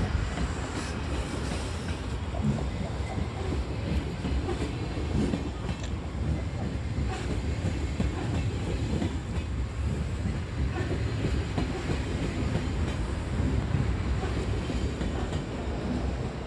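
DB Class 425 electric multiple unit running on the track: a steady rumble of wheels on rail with scattered clicks over rail joints.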